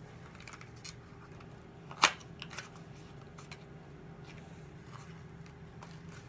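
Small objects being handled: a few light clicks and taps, with one sharp click about two seconds in, over a steady low hum.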